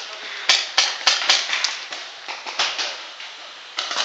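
Footsteps crunching over dry leaf litter and dirt, irregular throughout, with four sharp cracks in quick succession in the first second and a half.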